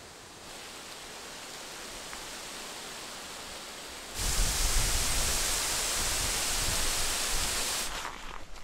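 Strong wind blowing across the microphone, a steady rush that gusts much louder about four seconds in, with low buffeting rumble, and eases just before the end.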